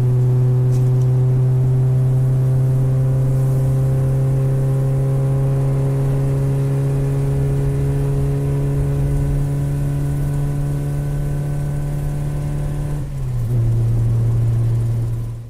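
A single low note held steady with a stack of overtones for about thirteen seconds, stepping down slightly in pitch near the end: a sustained drone opening a song, just before the band comes in.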